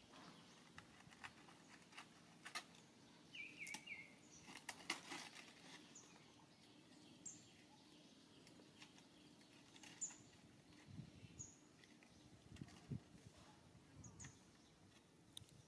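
Quiet outdoor ambience: short high bird chirps every second or two, one wavering call about three and a half seconds in, and scattered faint clicks and rustling of dry leaves as macaques handle the leaf litter.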